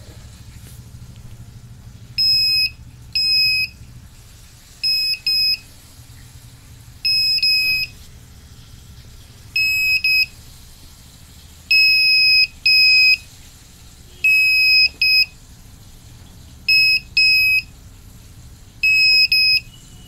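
Piezo buzzer on an IR-sensor security alarm circuit beeping a steady high tone in short bursts, often two beeps close together, at irregular gaps from about two seconds in. Each burst is the alarm being set off as an object passes in front of the infrared sensor.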